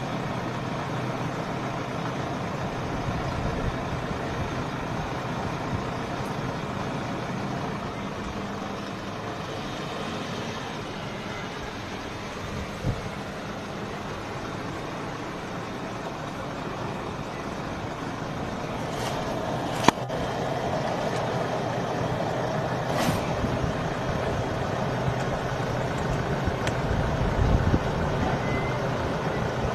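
Vehicle engines idling steadily with a low hum. A couple of short hisses and a sharp click come about twenty seconds in.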